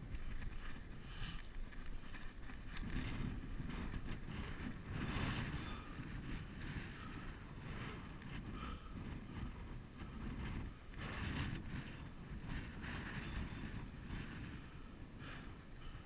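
Wind buffeting the GoPro's microphone as a steady low rumble, with irregular rustling and scuffing of dry grass and stones as the climber scrambles up the slope on hands and feet.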